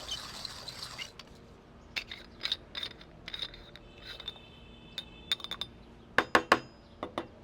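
Hand-cranked manual coffee grinder crunching beans, stopping about a second in. Then come scattered clicks and knocks of the grinder being handled, a short metallic ring in the middle, and a few loud knocks near the end.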